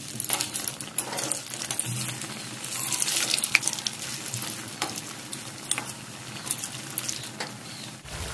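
Gram-flour-battered stuffed spine gourd chops sizzling as they fry in hot oil in a wok, with a metal spatula scraping and clicking against the pan as they are turned over.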